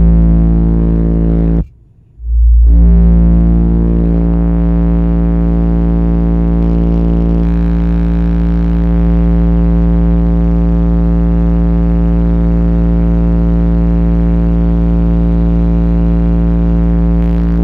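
Two 10-inch car subwoofers, driven by a Soundigital SD35k amplifier, playing a steady 57 Hz test tone at full volume inside the car. It is very loud, read at up to about 152 dB on the SPL meter. The tone drops out briefly about two seconds in, then holds with a buzzing stack of overtones.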